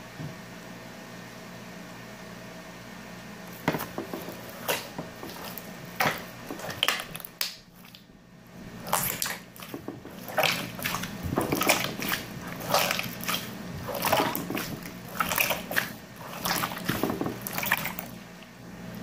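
Slime being squeezed and kneaded by hand: short, wet squelches and pops. They start a few seconds in, sparse at first, then come thick and fast in quick runs through the second half.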